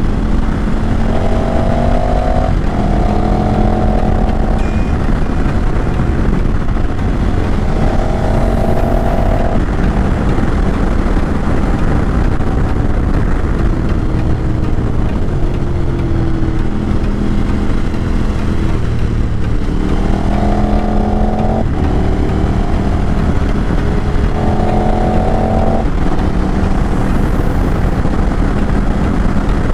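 2019 KTM 1290 Super Adventure R's V-twin engine with an SC Projects aftermarket exhaust, running under way on a ride. Its note steps up and falls back again and again with throttle and gear changes, over steady wind noise.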